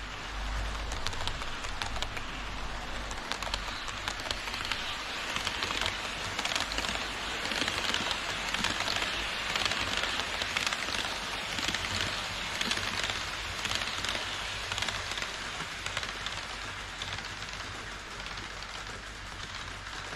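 HO scale model trains running on elevated KATO Unitrack: a dense, even rattle of metal wheels rolling and clicking over the rail joints. It swells around the middle as two trains pass each other on the double track, then fades as they run off.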